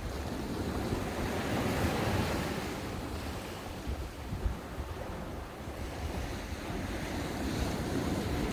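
Ocean waves breaking and washing on a sandy beach, a steady surf rushing that swells and eases, with wind buffeting the microphone in low rumbles.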